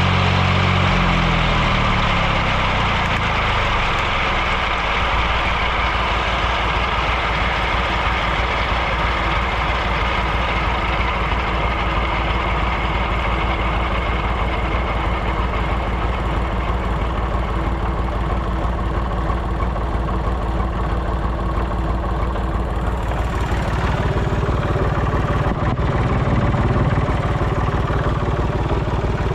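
Tractor engine running steadily while driving a disc mower. A low engine tone drops in pitch over the first few seconds, then holds steady, with a shift in the low hum near the end.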